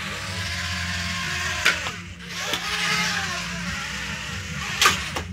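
Small quadcopter drone's propellers whirring steadily, the motor pitch wavering up and down, with two sharp snaps, one about a second and a half in and one near the end.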